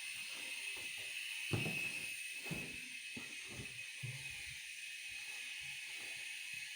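A steady high hiss under scattered small clicks and knocks of something being handled, with a heavier bump about one and a half seconds in.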